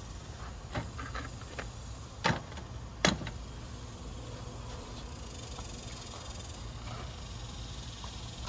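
Found items set down on a hard surface: a few light clicks, then two sharp knocks about two and three seconds in, over a steady low rumble.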